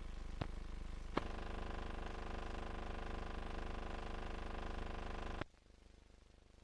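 Steady buzzing hum and noise from an old film soundtrack, with sharp clicks at the splices, the loudest about a second in. About five and a half seconds in, the hum cuts off to a faint hiss.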